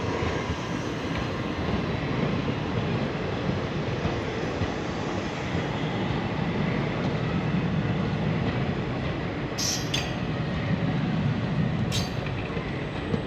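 Indian Railways passenger coaches rolling past close by, a steady rumble of wheels running on the rails, with short sharp high-pitched screeches twice near the end.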